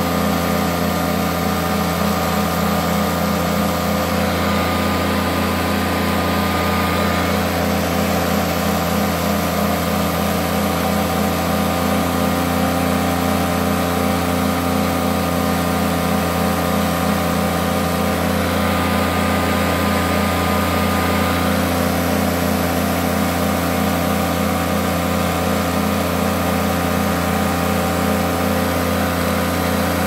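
Hoover Decade 80 upright vacuum cleaner running steadily in its power surge (high-speed) mode. It runs with a vibration that the owner puts down to brushroll bearings worn by carpet freshener powder.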